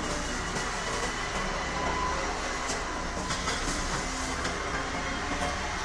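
Heavy demolition machinery running steadily, with scattered knocks and clatter of debris.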